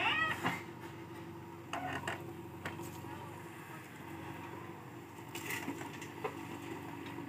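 JCB 3DX backhoe loader's diesel engine running steadily while its backhoe bucket dumps soil into a tractor trolley, with a few short knocks and clatters from the bucket and falling soil.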